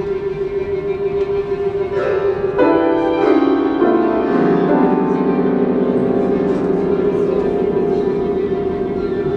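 Live chamber quartet of violin, cello, clarinet and piano playing contemporary classical music. One note is held steadily throughout, while from about two seconds in other instruments enter in a line of notes stepping downward in pitch.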